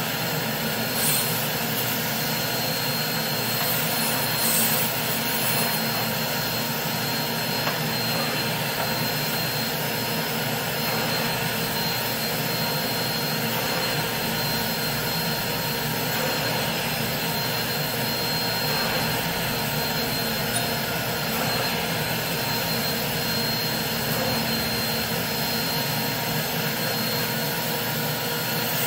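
Carpet extraction machine's vacuum running steadily through a floor wand pulled across a wool rug, a constant rushing noise with a high whine, swelling briefly a couple of times in the first few seconds.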